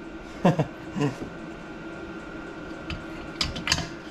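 Two short vocal sounds falling in pitch early on, then a few light, sharp metallic clicks near the end as a diesel heater's blower fan assembly is handled and seated onto its finned aluminium body, over a steady background hum.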